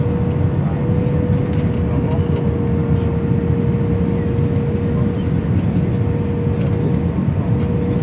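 Steady cabin noise of an airliner descending on approach: jet engines and rushing air, with a steady hum held at one pitch.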